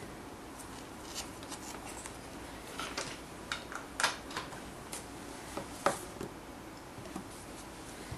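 Handling noise from an EasySMX G9000 gaming headset and its braided USB cable: scattered small plastic clicks, taps and rustles. The sharpest knocks come about four seconds in and about six seconds in.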